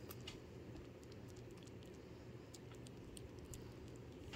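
A kitten lapping cream from a plate: faint, irregular little clicks of its tongue over a low steady hum.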